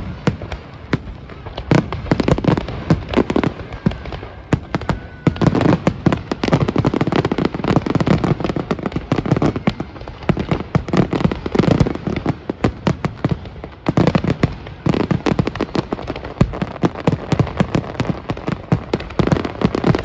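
Fireworks display going off in a dense, continuous barrage of sharp bangs and crackles, with clusters of deeper booms every few seconds.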